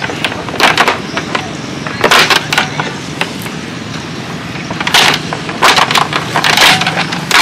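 Small boat engine running steadily, with several short, loud bursts of noise on top at irregular intervals.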